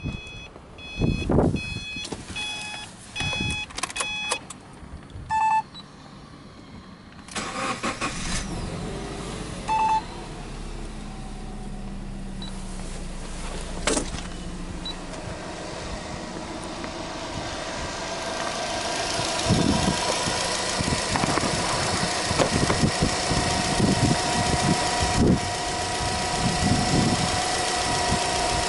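Dashboard warning chimes beep several times, then the Subaru Impreza S-GT's turbocharged flat-four (boxer) engine cranks and starts about seven seconds in. It settles into a steady idle that grows louder toward the end.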